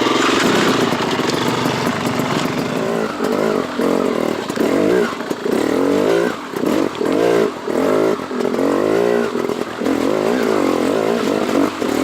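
Enduro dirt bike engine running and being revved up and down over and over as the bike rides up a rough trail section.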